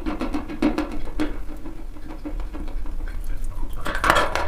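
Dry white chalk being crunched and chewed: rapid crackling clicks that thin out midway and come back strongly near the end.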